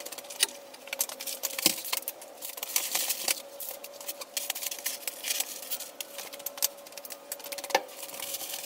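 Rustling and crinkling of batt insulation being handled and fitted, with many scattered sharp clicks and taps over a faint steady hum.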